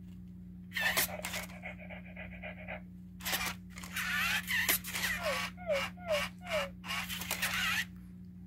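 Toy robot dog's small speaker playing electronic dog sound effects: a string of bursts, including four short falling yelps about half a second apart in the second half.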